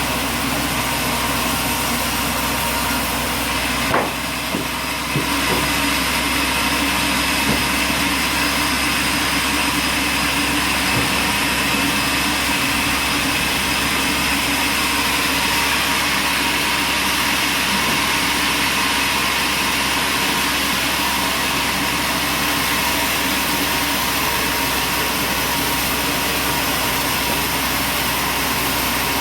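Machinery running with a steady, unchanging drone and whine. A single short knock comes about four seconds in.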